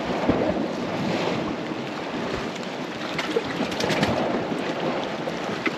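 Sea waves washing against the shore rocks, an even rushing wash that swells and eases, with some wind on the microphone.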